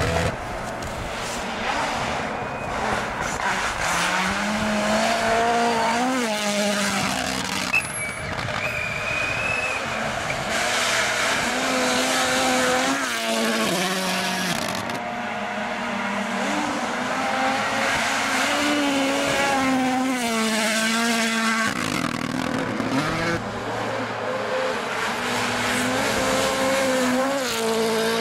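Rally car engines at full throttle, revving up and dropping back with each gear change and lift.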